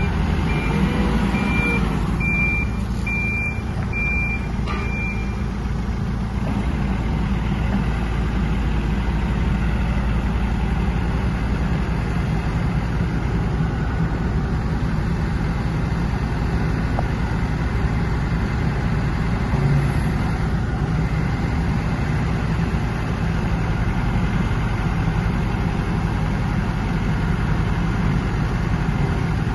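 Diesel engine of a 2010 Gallmac WMW115 wheeled excavator running steadily as the machine is worked. A high warning beeper sounds about twice a second for the first five seconds, then stops.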